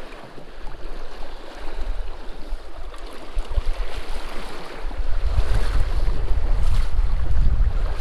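Stream water rushing, with wind buffeting the microphone as a heavy low rumble from about five seconds in.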